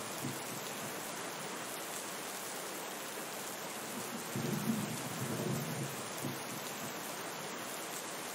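Steady rain falling. A low rumble of thunder swells and fades about halfway through.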